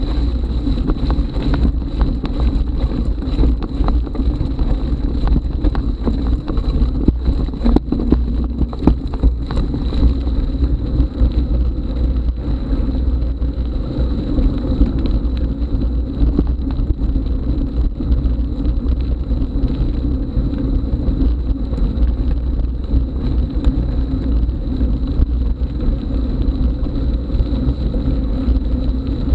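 Mountain bike rolling over a gravel trail, with tyres crunching on stones and the bike rattling in frequent short clicks, under heavy wind buffeting on the action camera's microphone.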